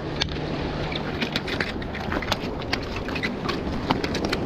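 A quick, irregular run of sharp clicks and taps over steady background noise, with a faint low hum in the first second and a half.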